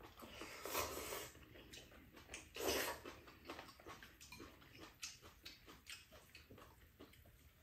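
Ramen noodles slurped in two loud rushes, about a second in and again just before three seconds, with soft chewing and small clicks between.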